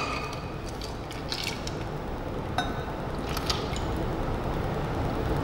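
A stirred cocktail strained from a mixing glass through a julep strainer over a large ice cube: a thin stream of liquid pouring steadily into the glass, with a few light clicks of the metal strainer against glass.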